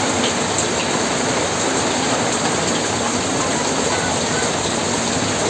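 Heavy rain falling steadily: a dense, even hiss.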